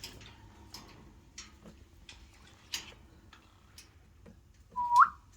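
Light, scattered clicks and taps from birdcage handling as quaker parrots are moved in, then, about five seconds in, a short squeak that jumps up in pitch.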